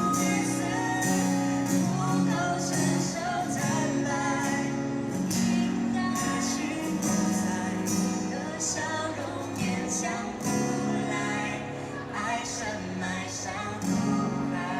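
Mandarin pop song performed with singing over guitar accompaniment, with steady rhythmic strokes throughout.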